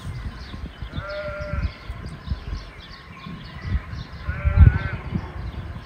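Sheep bleating twice, about a second in and again near the end, each a short call, the second one wavering. Irregular low rumbling thumps on the microphone run underneath.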